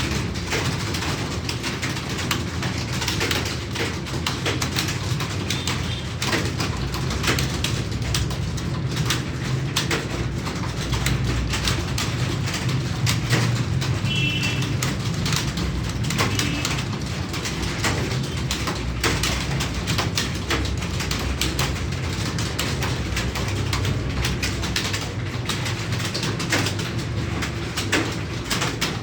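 Computer keyboard being typed on continuously, a fast stream of key clicks, with pigeons cooing in the background.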